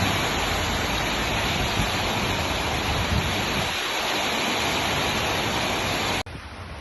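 Heavy rain pouring down, a loud steady hiss. A little over six seconds in it cuts off suddenly to a much quieter hiss.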